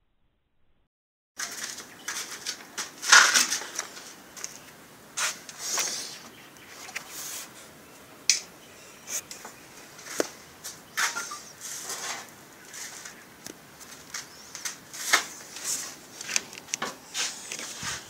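Close handling noise: irregular rustles and sharp clicks starting about a second and a half in, as a hand-held camera is moved about and a hand rubs over a car's front strut mount.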